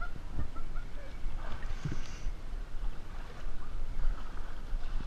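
Water sloshing and lapping against an inflatable tube drifting on a lazy river, with a steady low rumble.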